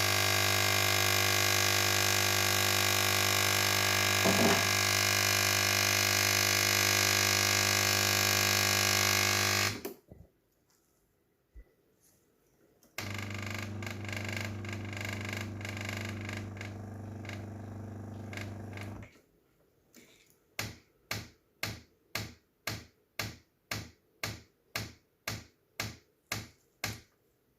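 Sage espresso machine's vibratory pump running with a steady buzz for about ten seconds, then again more quietly for about six seconds, then pulsing on and off about twice a second. The pump runs but no water flows, because a small internal tube is completely blocked with scale.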